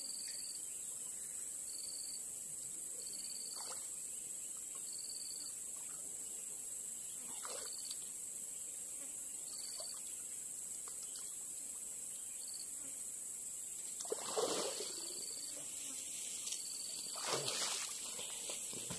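Steady high insect drone, with short chirps repeating every second or two. About three-quarters of the way in and again near the end, water splashes as a man wades in a muddy river.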